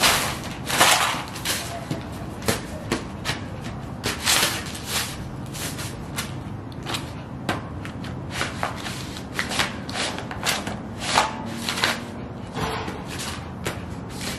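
Sheepskin boots stomping and shuffling on loose magazine pages on concrete, the paper crinkling and crunching in irregular bursts with each step, the loudest about a second in and again around four seconds in.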